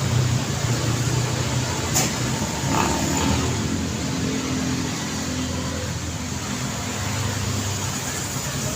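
Street traffic: vehicle engines running steadily close by, with a single sharp click about two seconds in.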